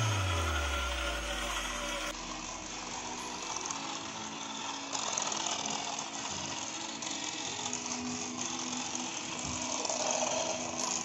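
Battery-powered glowing toy car running steadily along a plastic toy track, its small motor and gears making a continuous mechanical whirr. Background music dies away in the first couple of seconds.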